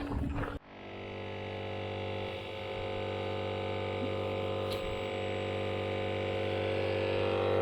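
Background music: a sustained droning chord that fades in after an abrupt cut about half a second in, growing slowly louder.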